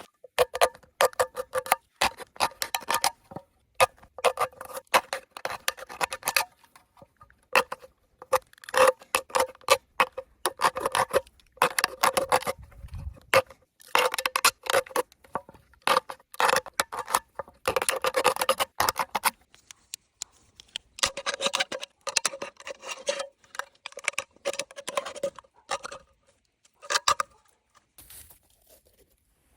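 A tool working a thin tin can: rapid runs of sharp metallic clicks, taps and scrapes with a light ring, broken by short pauses. The runs thin out after about twenty seconds and mostly stop near the end.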